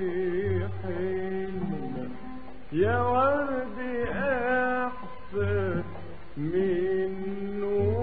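Recorded Arabic music: an ornamented melodic line with vibrato and pitch slides over a low note that returns about every two seconds.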